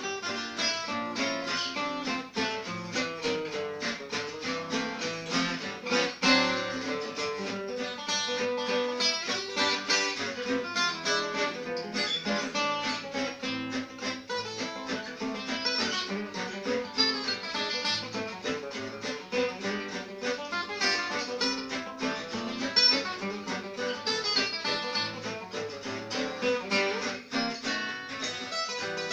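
Two acoustic guitars playing a French waltz together, one a gypsy-jazz-style guitar with a small oval soundhole, with picked melody notes over strummed chords.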